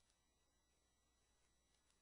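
Near silence: only a faint steady hum and hiss.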